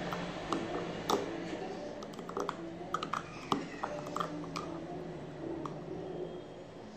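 Metal spoon stirring iced coffee and milk in a drinking glass: irregular light clinks of the spoon and ice cubes against the glass, thinning out near the end.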